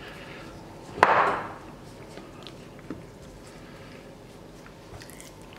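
Soft handling of raw chicken breast being pressed into a plate of seasoned flour, with one sharp thump about a second in and a few faint clicks after it.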